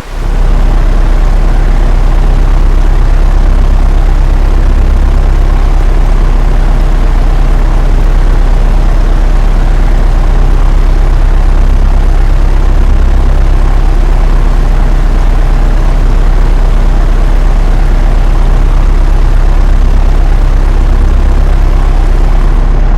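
Steady, loud propeller-aircraft engine drone, a low hum with a fast flutter, laid on as a sound effect. It cuts in just after a short drop at the very start.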